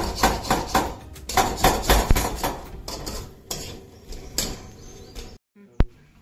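Knife chopping vegetables on a cutting board: quick, even strokes about four or five a second that thin out and slow after about three seconds, then a single sharp click near the end.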